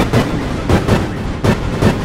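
Heavily distorted, looped audio: loud rapid thuds, about three to four a second, over a continuous rushing noise.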